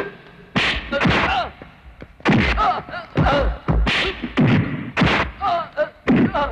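Dubbed film-fight punch sound effects: a series of sharp whacks and thuds, several a second at times, with men's grunts and shouts between the blows.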